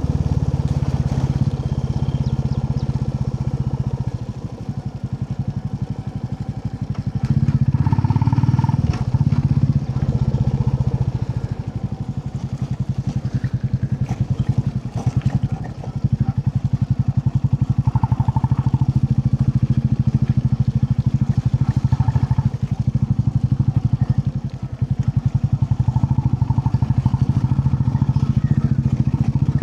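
Royal Enfield Classic 350's single-cylinder engine running on the move, heard from the rider's seat. It eases off the throttle three times, for a few seconds each, and pulls strongly again in between.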